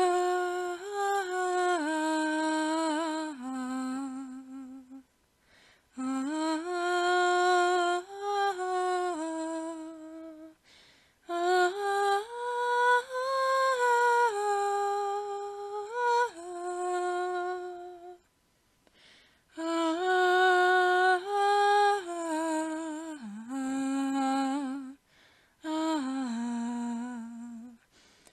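A woman humming a slow, wordless melody alone, in phrases of a few seconds each with short pauses between them, the notes held and gliding between pitches.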